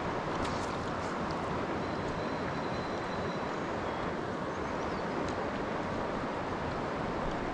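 Steady rush of river current flowing close to the microphone.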